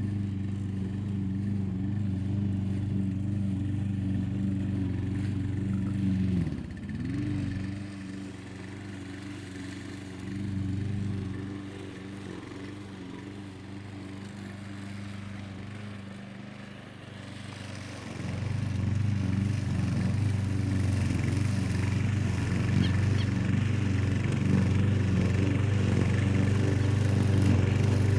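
Gasoline rotary lawn mower's 7.25 hp engine running steadily. About six seconds in, its pitch dips sharply and recovers. It then runs quieter for about ten seconds and grows louder and rougher from about eighteen seconds in.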